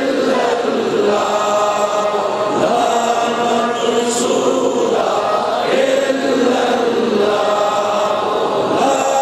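Male voices chanting zikr, an Islamic devotional chant, in long held notes that step slowly up and down in pitch, amplified through a microphone.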